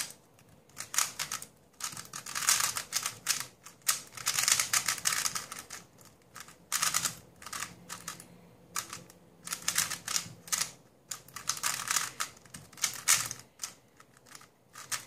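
MoYu AoLong GT 3x3 speedcube being turned fast by hand: runs of rapid plastic clicking and clattering as the layers turn, broken by short pauses between runs of moves.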